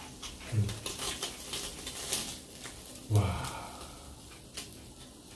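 Ribeye cooking on a tabletop grill: scattered small crackles and clicks from the grilling meat and tongs. Two short low hums from someone eating, about half a second in and a little after three seconds.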